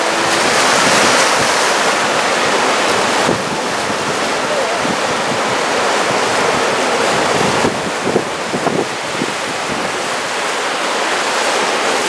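Ocean surf of about 1.5 m breaking and washing ashore in a steady rush, with wind buffeting the microphone.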